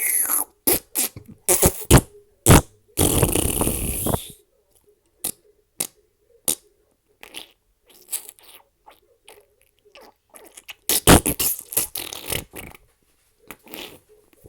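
A string of fart sound effects: several short, sharp farts in quick succession, then a longer, noisier one about three seconds in, a scatter of faint little pops, and another quick cluster of farts about eleven seconds in.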